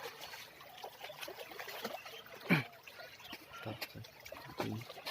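Water lapping and trickling in small irregular splashes, with a brief louder sound sliding down in pitch about halfway through.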